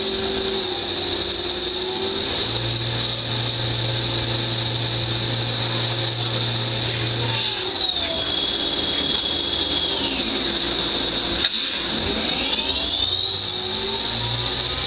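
Lathe machining a metal yo-yo: a high spindle whine that holds steady, drops in pitch about eight seconds in, cuts out with a click a few seconds later and then climbs again, as the bearing seat and pad recess are cut.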